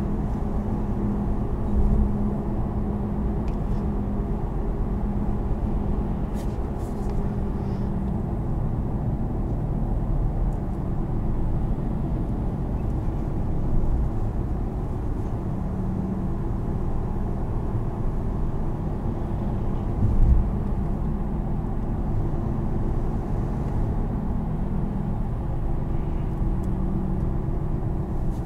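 Steady engine, tyre and road noise heard inside the cab of a 2020 Chevrolet Silverado 1500 pickup cruising on the highway. It is a continuous low hum, with a few brief low thumps about two, fourteen and twenty seconds in.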